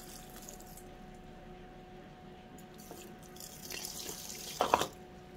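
Liquor poured from a glass bottle through a plastic funnel into a glass mason jar of dried herbs. The pour starts about three and a half seconds in, briefly gets louder just before it stops, and ends about a second and a half later.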